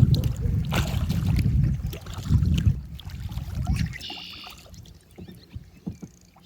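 Kayak paddling: paddle strokes and water splashing, with low rumbling on the microphone through the first four seconds. A brief bird call about four seconds in, then only small drips and clicks.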